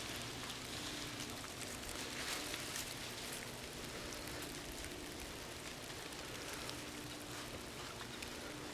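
Faint, steady outdoor background: an even hiss with scattered faint ticks.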